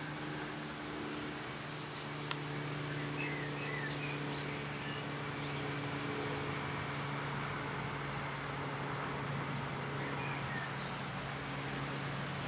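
OO gauge model Class 47 diesel locomotive running along the track with its coaches: a steady hum with wheel noise on the rails. Faint bird chirps sound over it, and there is a single click about 2 seconds in.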